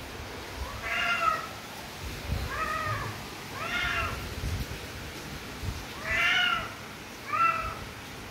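A tabby cat meowing five times, each meow rising and then falling in pitch. It is calling out.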